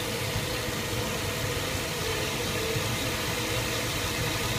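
Steady machine running noise: a constant low hum under an even hiss, unchanging throughout.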